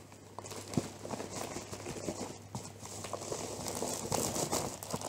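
Plastic courier mailer bag crinkling and rustling as a gift-wrapped present is slid out of it, with many small irregular crackles and taps.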